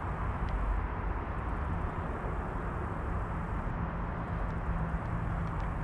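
Steady low outdoor rumble with a faint hum, and a few faint clicks near the end.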